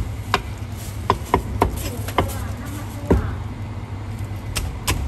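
Meat cleaver chopping a poached chicken on a thick wooden chopping board: a run of sharp, uneven chops, about eight in five seconds, the heaviest about three seconds in, over a steady low hum.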